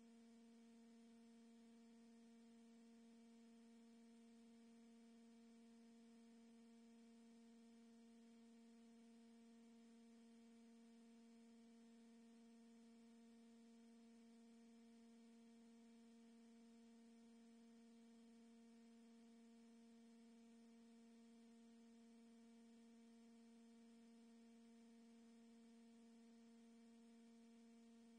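Near silence apart from a faint, steady hum: one low tone with fainter overtones, unchanging throughout.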